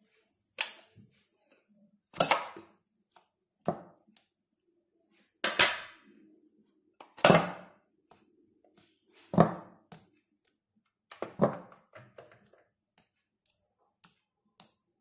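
A utensil knocking against a glass mixing bowl of whipped cream: about seven sharp knocks, one every second or two, then lighter taps near the end.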